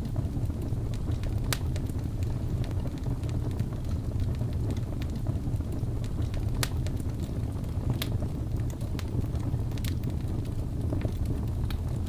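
Wood fire burning with a steady low rumble and a few sharp, scattered crackles and pops.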